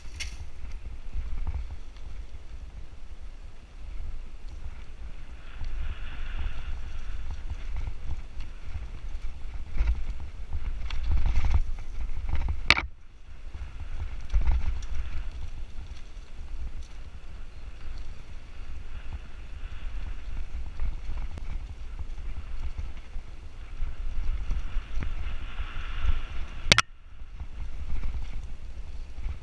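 Mountain bike riding fast down a dirt trail, heard from a GoPro on the rider: a steady low rumble of wind on the microphone and tyres over dirt, with the bike rattling over the ground. Two sharp knocks stand out, one about halfway through and one near the end.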